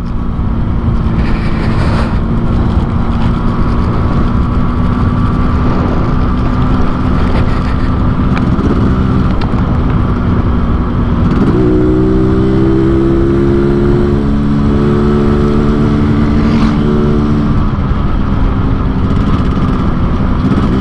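Yamaha RX-King 135cc single-cylinder two-stroke motorcycle riding along, its exhaust tuned Medan style for the 'ngorok' snoring note. The engine runs steadily, then its note rises about halfway through as the throttle opens, holds higher for several seconds, and eases off near the end.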